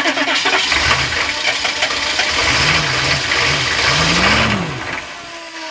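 Cold turbo diesel engine being cranked on the starter, catching and stumbling through a few rising and falling surges, then dying away near the end. It is a cold-weather hard start, which the owner blames on frozen or gelled fuel and a block heater left unplugged all night.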